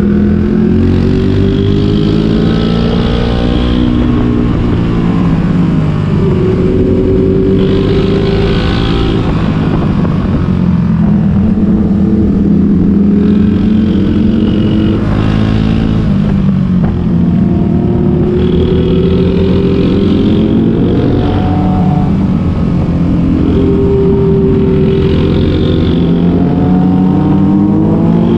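Sport motorcycle engine under way, its note climbing under throttle and falling back several times as the rider accelerates and backs off through the bends, over a steady rush of wind noise.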